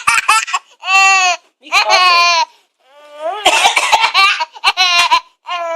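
A high-pitched voice laughing in a string of short bursts, about eight of them, with pauses between.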